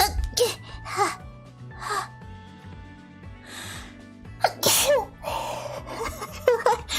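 A woman sneezing, brought on by an itchy nose: several shorter bursts, with the loudest sneeze about four and a half seconds in.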